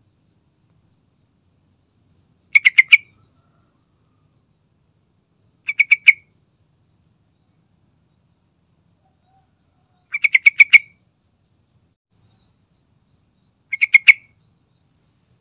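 Yellow-vented bulbul calling: four short phrases, each a quick run of four to six notes lasting about half a second, spaced a few seconds apart.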